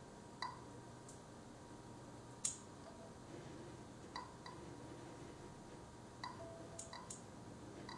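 Faint short electronic beeps and small clicks from Android phones and a tablet as an automated test opens and works a calculator simulator app. The beeps come irregularly, about six or seven of them, with one sharper click about two and a half seconds in.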